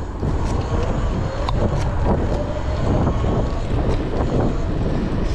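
Wind buffeting the microphone as a home-built electric bike speeds along under throttle, a heavy low rumble of rushing air with a faint motor whine underneath.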